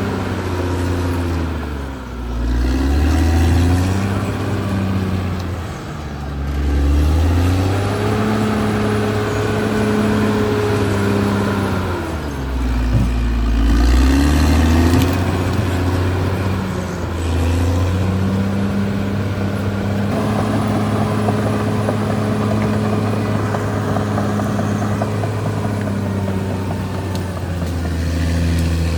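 Caterpillar D6R XL bulldozer's diesel engine running. Its pitch sags and recovers three times in the first half, then holds steady.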